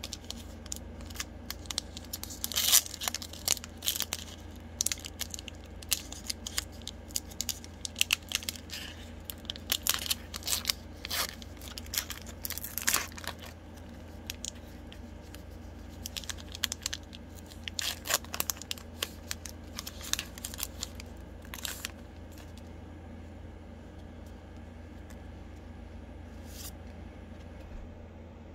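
Foil wrapper of a Magic: The Gathering booster pack being crinkled and torn open by hand: scattered clusters of sharp crackles and rips that die away in the last several seconds.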